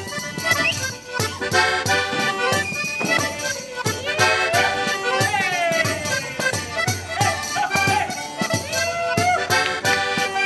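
Live saltarello dance music from an Italian folk ensemble, led by accordions with a guitar, over a fast, steady beat.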